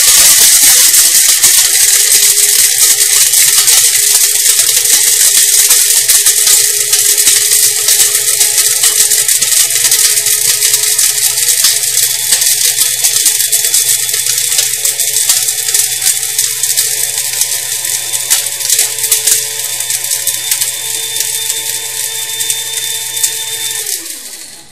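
Krups F203 electric blade grinder with a 200-watt motor running flat out, its steel blade smashing cinnamon sticks that rattle loudly inside the clear plastic cover. The clatter slowly eases as the sticks break down into fine powder, and near the end the motor is switched off and winds down with a falling whine.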